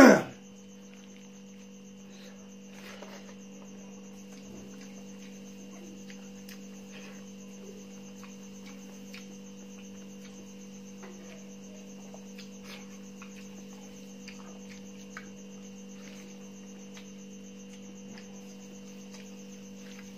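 A steady electrical mains hum, with faint scattered clicks and smacks from a hand mixing rice in a steel bowl and eating. A brief loud noise at the very start.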